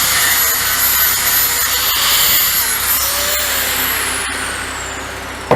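Stick welding arc crackling and hissing steadily. It eases off over the last two seconds, and there is one short, sharp knock at the very end.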